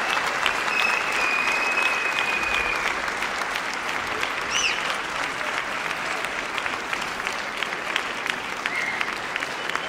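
Concert audience applauding: a dense, steady clatter of handclaps with a few long, high whistles over it, one bending up and down about halfway through.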